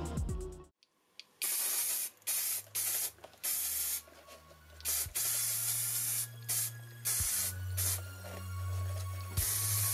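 Spray paint hissing from a can in a series of short bursts, starting about a second and a half in, as grey primer is sprayed onto a small scale-model car body.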